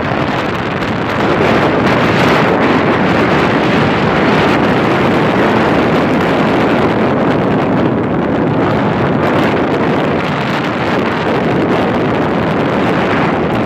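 Loud, steady wind rush over the microphone while riding along a road, mixed with vehicle and road noise.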